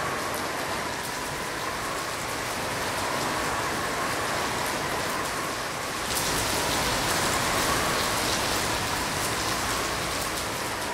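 Steady rain falling, a dense hiss of drops, which grows heavier and brighter about six seconds in.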